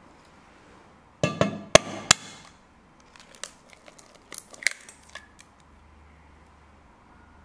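A hen's egg knocked against a stainless steel bowl: three or four sharp cracks with a short metallic ring about a second in. Then a run of small clicks and crackles as the shell is pulled apart and the egg drops into the bowl.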